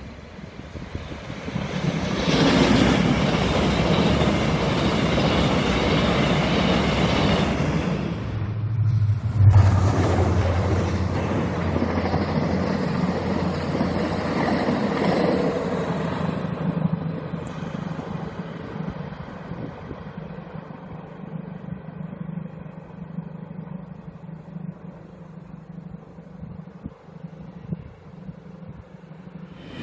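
Passenger trains passing on the line: the steady rumble and rattle of wheels on rails, loudest in the first half. Near the end it fades as the train draws away.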